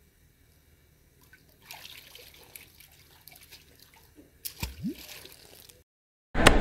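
Faint outdoor yard sounds: scattered soft rustles and ticks, with a short low rising sound about two-thirds of the way in. It drops to silence, and near the end a loud Rumble outro jingle starts.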